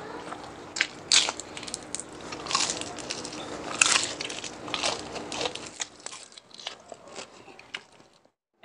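Close-up crunching and chewing of crispy chicharon bulaklak, deep-fried pork mesentery: many sharp crackling crunches that thin out after about five seconds and stop shortly before the end.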